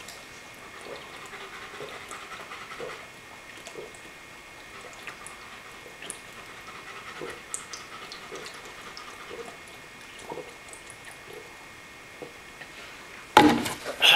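A long swig of vodka straight from the bottle: faint gulps about once a second, with heavy breathing through the nose. A sudden loud burst near the end as the drinking stops.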